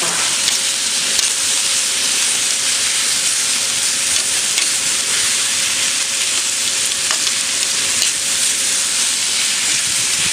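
Cabbage and salted pork sizzling steadily on a hot barbecue iron plate as they are stir-fried, a loud even hiss with occasional faint clicks from the stirring.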